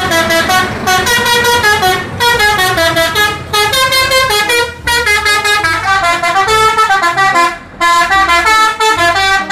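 Tour bus's multi-tone musical air horn, a 'telolet' horn, playing a fast melody note after note in several phrases with short breaks between them.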